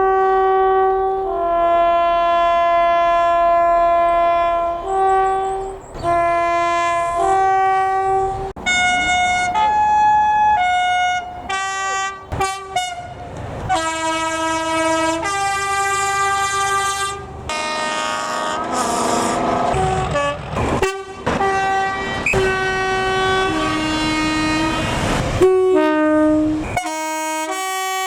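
Train air horns sounding a long run of tones in quick succession, stepping between higher and lower notes. The running noise of the train comes through beneath the horns for a few seconds past the middle.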